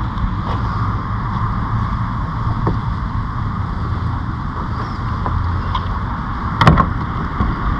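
Steady wind rumble on the microphone over a kayak on calm water, with a few faint clicks. One sharp knock comes a little before the end as the paddle is handled against the plastic hull.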